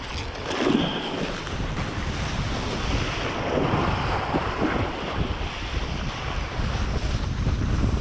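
Wind buffeting the microphone of a kitesurfer's body-mounted camera, a steady low rumble, with the hiss and splash of the kiteboard planing over choppy water and throwing spray.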